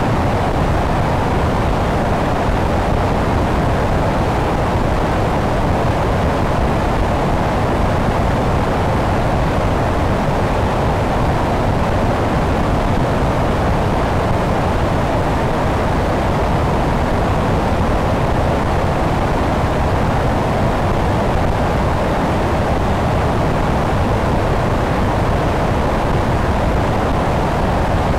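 Steady rush of airflow over a wing-mounted camera on an electric Sonex Xenos motor glider in cruise, an even roar with no distinct engine tone standing out.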